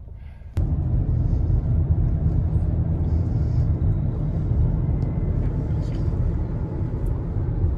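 Steady low rumble of a car driving along a highway, heard from inside the cabin; it starts suddenly about half a second in.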